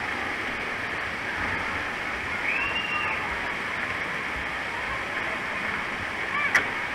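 Steady rushing and splashing of water, with a faint distant voice calling out briefly about halfway through and a short sharp sound near the end.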